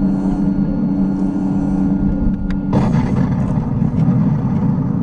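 Heng Long RC M1A2 Abrams tank's sound unit playing a simulated engine idle through its small speaker, a steady hum; a little under three seconds in it switches suddenly to a louder, rougher engine rumble.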